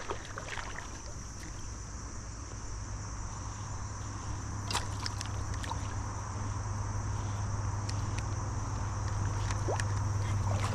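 Steady outdoor drone of insects, with a low rumble beneath that grows gradually louder, and a few faint clicks.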